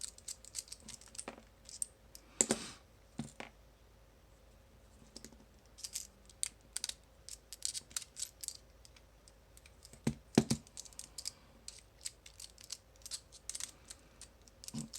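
Small metallic clicks and taps as a pin-tumbler padlock is taken apart and its core worked loose, with two louder knocks, about two and a half seconds in and about ten seconds in.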